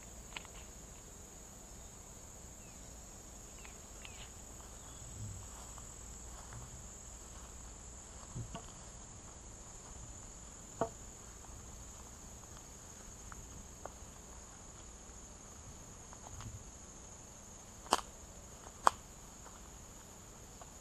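Steady, high-pitched drone of a summer insect chorus, with a few sharp taps, the loudest two near the end.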